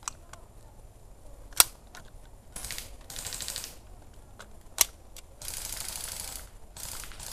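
Airsoft rifle handled and fired: two sharp single shots about three seconds apart, with bursts of rapid, dense clicking rattle of about a second each between and after them.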